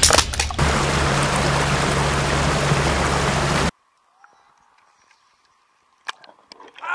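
Lake water splashing and rushing over a half-submerged camera, first in choppy splashes, then as a steady dense hiss with a low hum underneath. It cuts off abruptly a little past halfway, leaving near silence with a few faint clicks.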